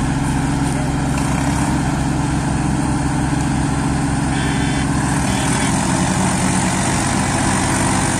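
Several diesel tractor engines, a John Deere among them, running steadily under heavy load as they haul through deep mud.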